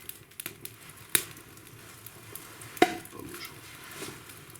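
Wood fire crackling in a fireplace: a faint steady hiss with scattered small crackles and two sharp pops, about a second in and near three seconds in.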